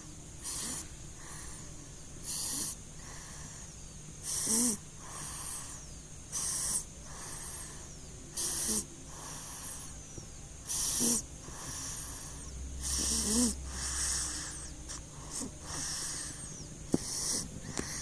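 A three-month-old baby snoring in sleep: wheezy, noisy breaths about every two seconds, a few with a brief low throaty note.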